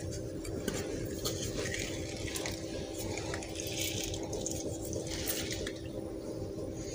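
Lime being squeezed in a hand-held metal-hinged citrus press, juice dripping faintly into the marinade, with a few faint clicks. A steady low hum runs underneath.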